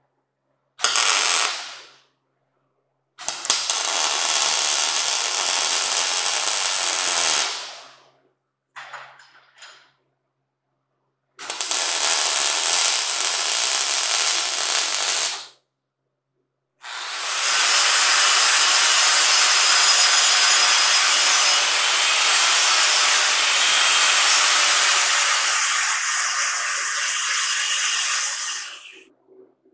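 MIG welder arc crackling in several separate runs of a few seconds each, with silent gaps between, welding steel end caps onto square steel tubing. The last and longest stretch ends with an angle grinder grinding the welds.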